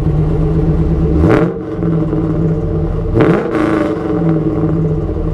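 Pontiac Trans Am's LS1 V8 idling through long-tube headers, a catless single pipe and a chamber muffler out of quad tips, with a throaty, raspy note. It is blipped twice, quick revs about a second in and again about three seconds in, each dropping straight back to idle.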